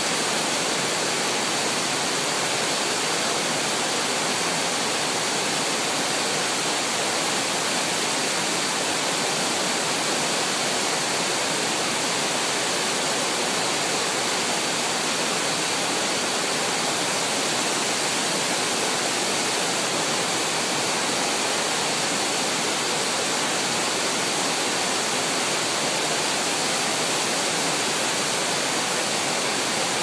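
Broad stepped waterfall in heavy flow, swollen by recent heavy rain, making a steady, even rush of falling water with no let-up.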